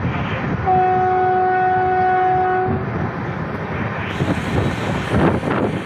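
Electric locomotive's horn sounding one steady note for about two seconds, a little under a second in. Underneath it, the moving train's rolling and wind noise runs on.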